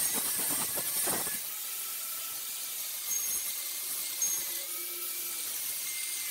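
Angle grinder with a wire-wheel brush scrubbing the steel cutter wheel of a stump grinder, cleaning it down to bare metal. A loud scratchy hiss for about the first second and a half, then lighter contact with a steady whine whose pitch wavers slightly.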